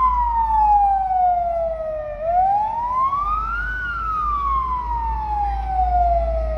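Emergency vehicle siren wailing, its pitch sliding slowly down, rising quickly about two seconds in, then sliding slowly down again, over a steady low rumble.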